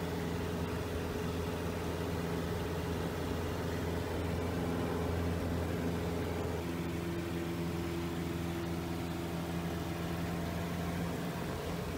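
Sport Cub light aircraft's piston engine and propeller droning steadily in cruise flight, heard inside the cockpit; the tone of the drone shifts slightly about halfway through.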